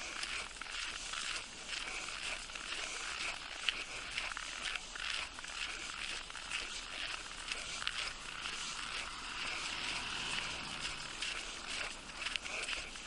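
Crackly crunching of footsteps in fresh snow, a dense run of small crunches with no clear rhythm.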